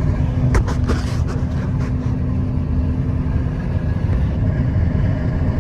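Combine harvester running steadily with a heavy low rumble. A few sharp clicks or knocks come in the first two seconds, and a steady hum in the rumble drops out about two-thirds of the way through.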